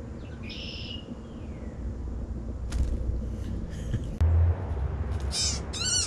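Wild birds giving short calls and chirps, busiest near the end, with a few knocks and one brief low thump a little past the middle.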